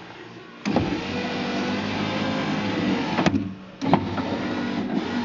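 Power window motor from a 1989 Ford Aerostar, fitted in a De Tomaso Pantera door, driving the window glass through the door mechanism. It starts with a click about two-thirds of a second in and runs steadily for about two and a half seconds. It then stops with a click and starts again half a second later.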